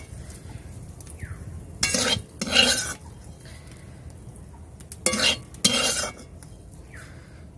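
Metal spatula scraping and stirring against a metal karai (wok) while pumpkin fries sizzle in hot oil. The strokes come in two pairs, about two seconds in and again about five seconds in, over a steady sizzle.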